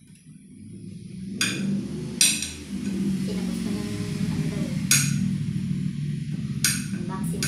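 Metal fork and spoon clinking and scraping against a plate while eating, with four or five sharp clinks, the loudest about two seconds in, over a low steady hum.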